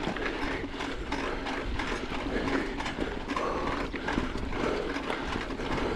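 Mountain bike ridden over a rough dirt trail: rattle and wind noise with repeated creaking knocks from the rear hub, a Shimano 12-speed Micro Spline hub that creaks for want of grease.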